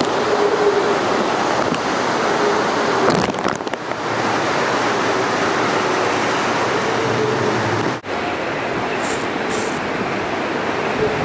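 Hurricane storm surf and wind: rough waves breaking and washing over the shore in a loud, steady rush of noise. A faint steady tone comes and goes underneath.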